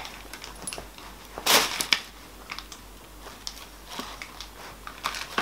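Crinkling and rustling of clear plastic treat packets being handled, in irregular crackles with a louder rustle about one and a half seconds in.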